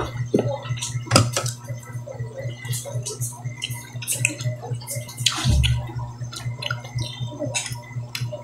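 Sounds of a meal being eaten: scattered small clicks and taps of utensils and dishes, with wet mouth sounds of chewing, over a steady low hum.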